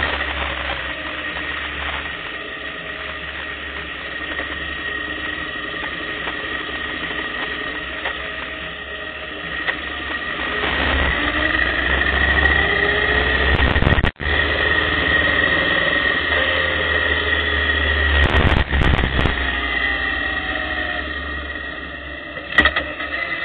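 Motorcycle engine running while riding, with wind and road noise on the microphone; its pitch climbs as it accelerates around the middle and falls off near the end. The sound cuts out for an instant about fourteen seconds in.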